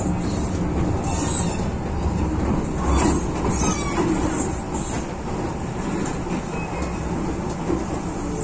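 MTR Tsuen Wan Line M-Train heard from inside a car while running between stations: a steady rumble of wheels on track, with a few brief high-pitched wheel squeaks.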